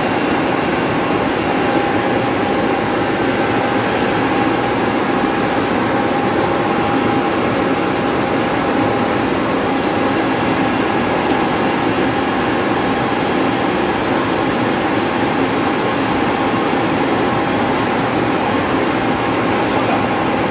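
Newly installed electric-motor-driven centrifugal pump running steadily under commissioning: an even mechanical running noise with a steady whine on top. It runs smoothly, without strong vibration.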